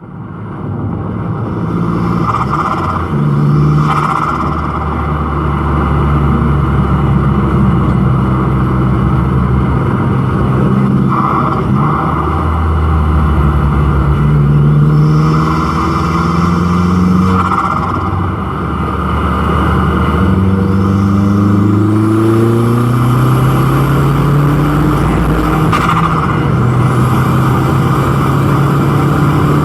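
Volkswagen Golf GTI's turbocharged petrol engine, fitted with an aftermarket intake, revving and accelerating. Its pitch climbs and drops as it pulls through the gears, with short fluttery bursts of turbo flutter at the lift-offs. A high whistle rises twice in the second half.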